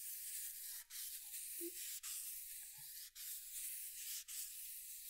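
Sandpaper rubbing back and forth along the trailing edge of a hydrofoil, a steady hiss broken about once a second as each stroke turns. The edge is being gently rounded to stop the foil whistling when ridden.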